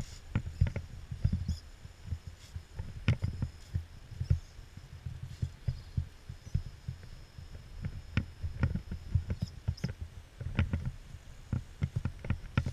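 Axial AX10 RC rock crawler clambering over sandstone blocks: irregular knocks and scrabbling of its tires and chassis against the rock over a low, uneven rumble, with a faint high whine coming and going.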